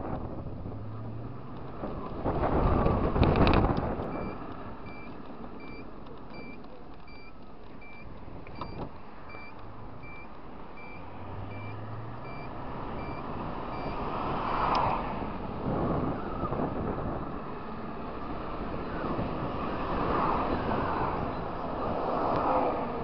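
A scooter ridden in traffic, its engine running under wind rush on the microphone. A loud rush of wind comes about two seconds in. From about four seconds in, a high electronic beep repeats about every 0.8 s for roughly ten seconds, typical of a scooter's turn-signal indicator buzzer.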